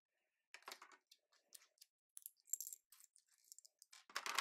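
Loose plastic LEGO bricks clicking and clattering as hands sort through a pile of pieces, in a scatter of light, irregular clicks. A denser, louder clatter comes near the end.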